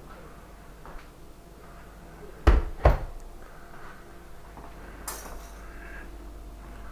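Two sharp knocks about half a second apart, then a brief scraping rustle about five seconds in.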